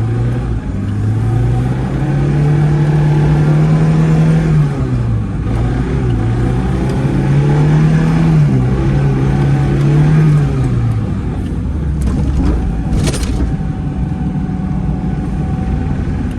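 A Zhiguli's four-cylinder engine revving hard. It climbs and holds high, eases off about five seconds in, climbs again, then drops back near the two-thirds mark. There is a short sharp hiss near the end.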